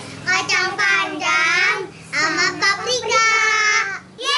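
Children singing in high voices, with several long held notes that waver in pitch, broken by short pauses.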